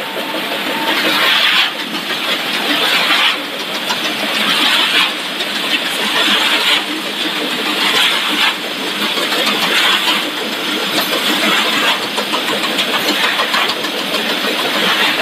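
Snack production line machinery running: a loud, steady mechanical hiss and whir that swells and drops back in a regular cycle about every second and a half to two seconds.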